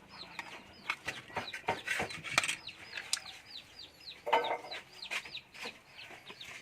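A bird calling in a fast, steady series of short high chirps, about three or four a second, over a run of sharp irregular knocks from chopping.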